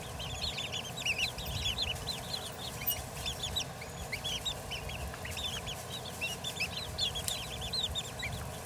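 A flock of young Silver Grey Dorking chickens peeping nonstop, with many short, high cheeps a second overlapping one another.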